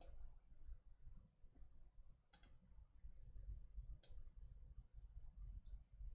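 Near silence over a low room hum, broken by three faint, sharp clicks about two and a half, four and five and a half seconds in.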